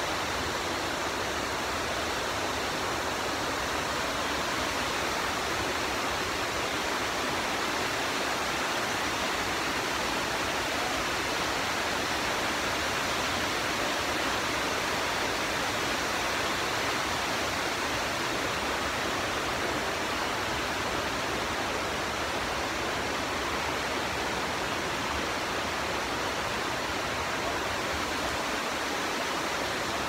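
Large waterfall pouring over a rock ledge onto rocky rapids: a steady, unbroken rush of falling water.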